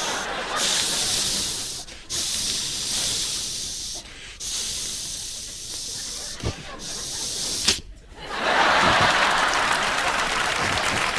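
Vocal sound effect: a performer hisses into a microphone in three long bursts, like spraying steam, ending with a sharp click. About eight seconds in, audience applause and cheering take over.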